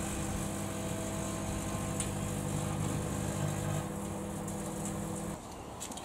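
Breville microwave oven running, a steady electrical hum with a fan-like hiss, while old Christmas light strings arc inside it. The hum cuts off about five seconds in as the oven stops.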